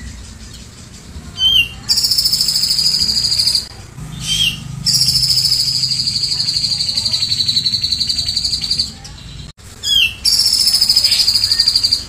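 Caged grey-cheeked bulbul (cucak jenggot) singing: three long, high, buzzing trills, the middle one about four seconds long, each opened by a short rising chirp.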